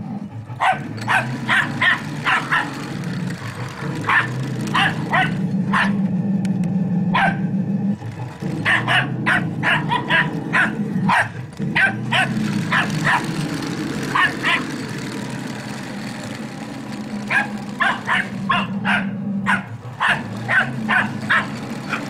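A small dog barking in quick bouts of several barks at a time, with short pauses between bouts, over the steady low hum of a 1/6 scale radio-control Tiger tank running.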